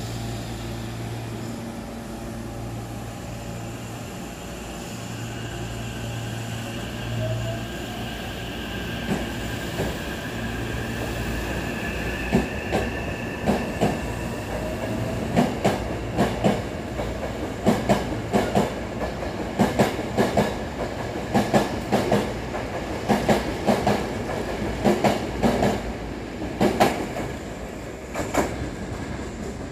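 Hankyu 9000 series electric train pulling out of a station: a steady hum while it stands, then the motor whine rising in pitch as it accelerates. A long run of clickety-clack follows as the cars roll over the rail joints and points past the platform.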